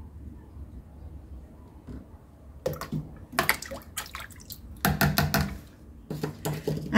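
Water splashing and sloshing in a plastic basin as a scoop of creolin is tipped in and swished around to mix it into the water. It is a run of short splashes that starts about three seconds in.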